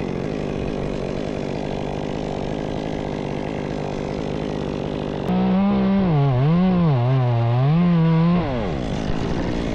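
Two-stroke chainsaw idling, then throttled up suddenly a little over halfway through. Its engine pitch rises and falls for about three seconds before winding back down to idle.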